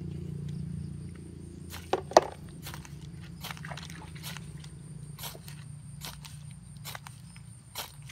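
Dry grass and straw tinder rustling and crackling as hands twist and pack it into a bundle: two sharp snaps about two seconds in, then scattered crackling clicks, over a steady low hum.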